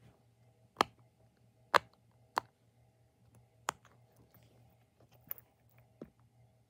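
Silicone pop-it fidget toy having its bubbles pressed by fingers: about six sharp, separate pops at irregular intervals, over a faint steady hum.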